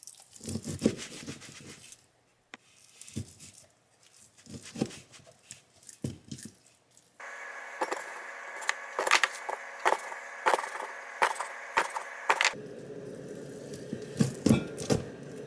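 Chef's knife chopping raw chicken on a wooden cutting board: irregular knocks of the blade hitting the board, some close together. About halfway through a steady hum comes in under the chopping.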